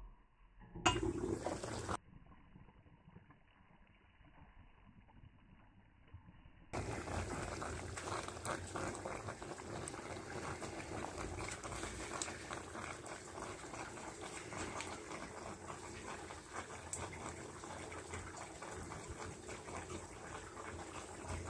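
Duck stew simmering in a cast-iron potjie over wood coals: a steady bubbling with small crackles and pops, from about seven seconds in. Before that comes a brief loud noise about a second in, then a quiet stretch.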